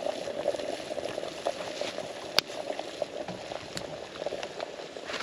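Water with acorns in it boiling hard in a small bucket over a campfire: steady bubbling with many small pops, and one sharp crack about two seconds in.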